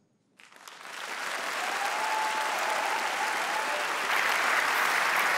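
Audience applause in a large hall, starting after a brief silence and swelling, then growing louder about four seconds in.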